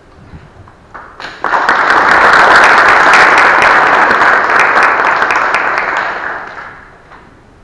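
Audience applauding in a large hall. It starts about a second and a half in, holds steady, then fades out near the end.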